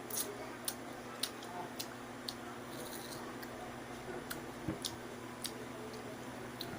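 Wet mouth sounds of someone chewing ripe mango: about ten soft, irregular smacks and clicks over a steady low hum.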